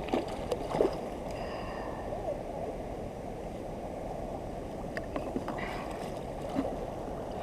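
Steady rush of flowing creek water, with a few faint light clicks and short high chirps over it.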